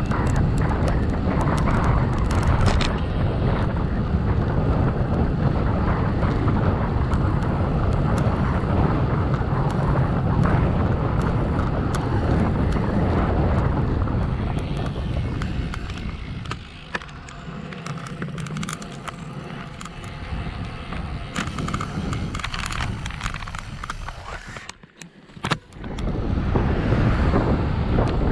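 Wind rushing over the microphone of a camera mounted on a moving bicycle: a steady, heavy rumble of noise. It turns quieter a little past halfway, and near the end it almost cuts out for a moment before coming back.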